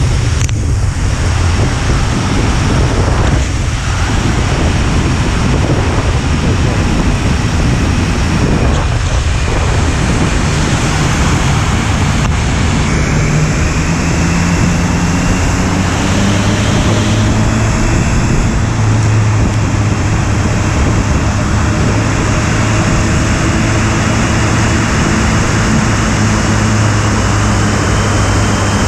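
Motorcycle riding on a rain-wet road: heavy wind rushing over the microphone with steady road and tyre noise, and the engine's low hum rising and stepping up in pitch about halfway through.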